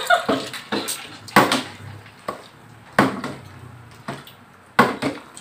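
Plastic water bottle being flipped and landing on a tabletop: three sharp knocks about a second and a half apart, with a fainter one between the first two.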